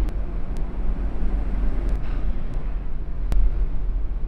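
Steady low background rumble, like traffic, with a few faint sharp clicks and one louder click a little past three seconds in.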